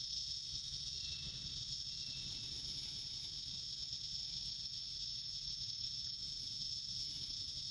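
A steady, high-pitched chorus of insects (crickets or cicadas) droning without a break, with a low rumble underneath.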